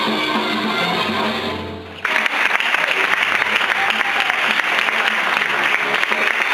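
Music playing and fading out about two seconds in, then an audience applauding. The applause starts suddenly and keeps up steadily.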